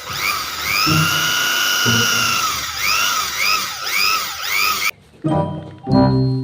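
Small electric drill whirring. Its whine rises and holds, then swoops up and down several times before cutting off about five seconds in.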